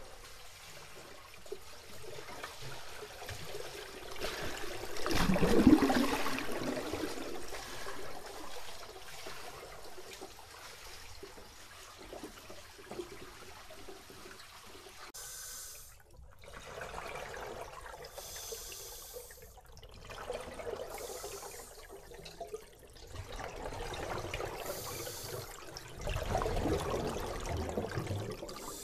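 Water noise from a kayak being paddled through a swimming pool: a run of repeated swishing paddle strokes, then near the end a scuba diver's exhaled bubbles. This is the kind of noise people make in water that carries to marine life.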